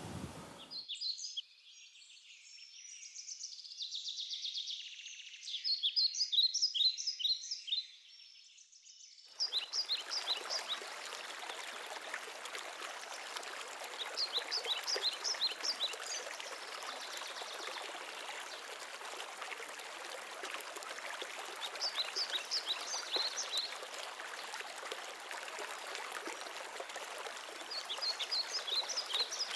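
Birds singing in bursts of quick, high chirps. From about nine seconds in, the steady rush of a running stream sets in beneath them, and the birds keep singing in short bursts over the water.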